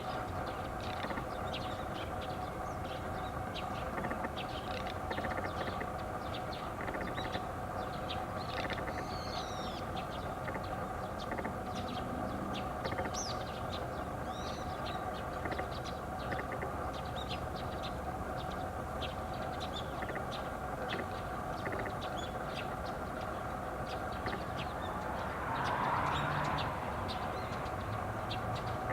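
Garganey calling: short, dry, rapid clicking rattles repeated every few seconds, with other birds' higher chirps over a steady background hum. A broad swell of noise rises and fades near the end.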